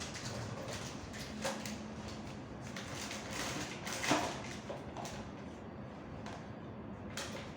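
Light handling noises: scattered soft clicks and rustling, with one louder knock about four seconds in, over a steady low hum.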